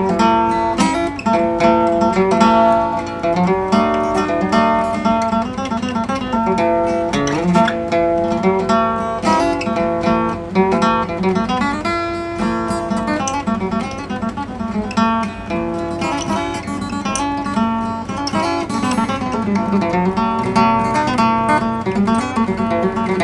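Instrumental country music led by acoustic guitar, picking many quick notes, with no singing.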